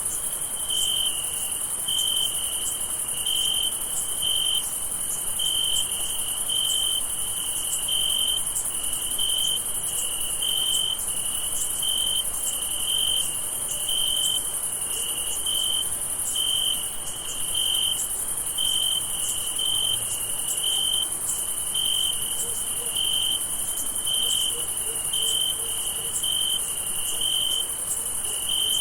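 Night chorus of crickets: a steady, high-pitched trill under a lower chirp that repeats evenly, roughly every two-thirds of a second.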